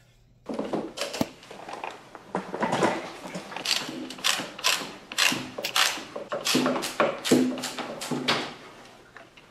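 Socket ratchet clicking in short, irregular strokes, about two or three a second, with knocks as it is worked on a bolt at a motorcycle's top yoke.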